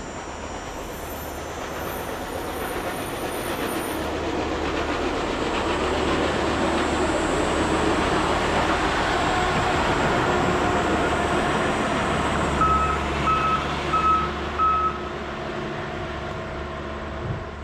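Rail-mounted tie crane towing a cart of railway ties rolling past on the track, its engine and steel wheels getting louder as it nears and then easing off as it moves away. Near the end, four short evenly spaced warning beeps sound.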